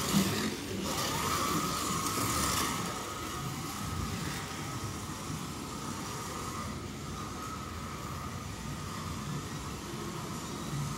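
Scalextric slot cars running on the track, their small electric motors making a steady high whine, with cars swishing past close by near the start and again about two seconds in.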